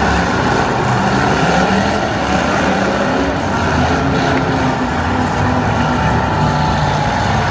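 Several demolition derby cars' engines running and revving at once, a loud continuous mix of engine noise.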